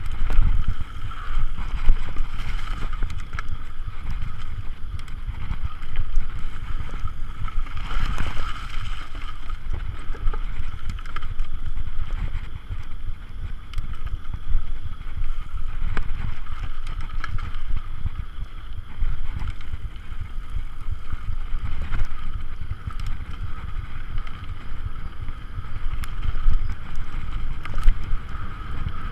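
Mountain bike ridden over a dirt trail: wind buffeting the microphone over a steady low rumble from the tyres, with scattered clicks and rattles from the bike over the bumps.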